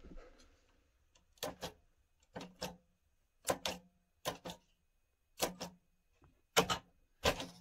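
Sharp clicks in close pairs, about one pair a second, seven pairs in all, ending abruptly.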